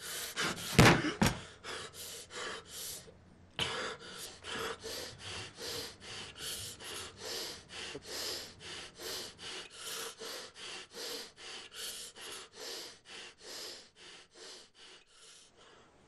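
A man breathing hard in rapid, ragged gasps, about two to three breaths a second, in distress. It opens with one loud gasp about a second in, and the breaths slowly fade toward the end.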